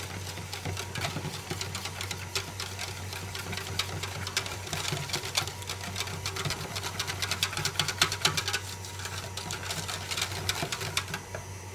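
Balloon whisk beating fruit purée in a stainless steel bowl: a fast, continuous rattle of wire clicking against the metal, stopping near the end, over a steady low hum.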